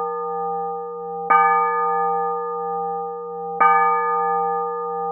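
A bell tolled at one unchanging pitch, struck about a second in and again about three and a half seconds in, each stroke ringing on long with a slow wavering hum.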